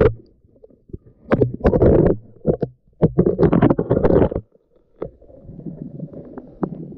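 Water sloshing and bubbling in a slushy ice-fishing hole as the camera comes up through it, in two main bursts about a second and three seconds in. After about five seconds it gives way to a quieter, steady rustling.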